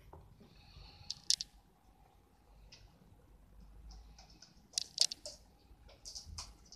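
Pigeon's claws clicking and tapping on a wooden floor as it walks, a few scattered sharp ticks with the two loudest about a second in and near the five-second mark.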